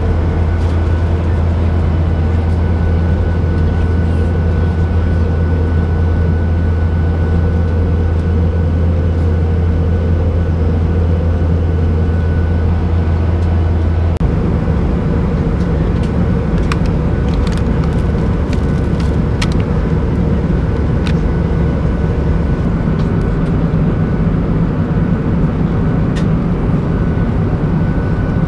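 Steady cabin noise of a Boeing 737-800 in flight: the drone of its CFM56 engines and airflow past the fuselage, with a strong low hum. The low hum shifts about halfway through, and a few light clicks come in the second half.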